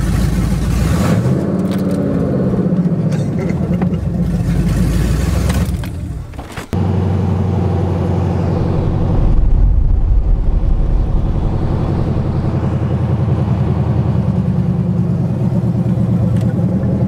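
Cammed Chevy Silverado's 5.3 V8 revving with rising pitch in the first few seconds, heard from inside the cab. After a brief drop about six seconds in, the engine runs steadily under load and gets louder about ten seconds in as the truck accelerates.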